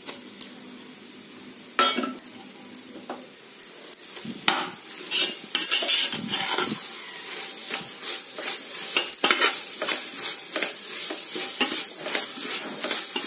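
Chopped tomatoes tipped into onions and ginger-garlic paste frying in oil in a metal pot, with a steady sizzle. From about two seconds in, a slotted metal spatula stirs and scrapes against the pot, making frequent clinks and scrapes.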